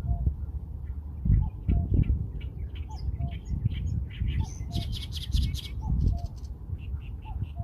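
Birds chirping with many short, high calls, over a low two-note call repeated about every second and a half. A harsher, buzzy call comes in about five seconds in, with a low rumbling noise underneath.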